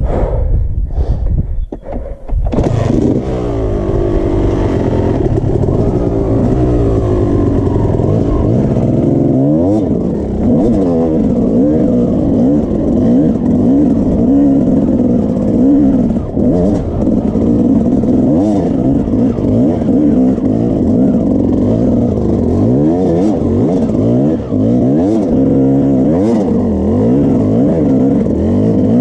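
Yamaha YZ250 two-stroke single-cylinder dirt bike engine under load, revving up and down constantly with throttle changes as the bike climbs a steep, rough dirt track. It is choppy and uneven for the first couple of seconds, then pulls continuously.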